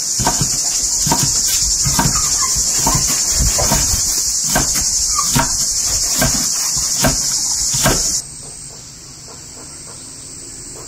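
Kitchen knife chopping green beans on a wooden cutting board, short knocks about twice a second, over a loud steady high-pitched insect chorus. About eight seconds in the chopping stops and the insect sound drops to a quieter, thinner buzz.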